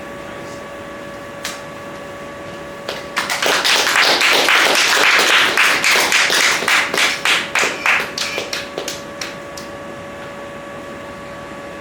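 Chalk on a blackboard: a dense run of quick taps and scrapes starting about three seconds in, thinning to a few separate taps near the end.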